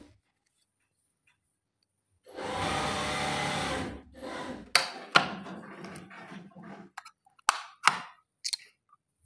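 Industrial overlock sewing machine running in one steady burst of under two seconds, a little over two seconds in, followed by several sharp clicks and knocks from the machine being handled.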